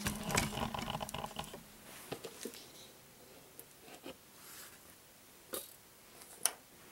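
Small clicks, taps and rattles of a warmed molasses carton being handled and tipped over a plastic mixing bucket. They are busiest in the first second and a half, then come as a few scattered clicks, the sharpest a little before the end.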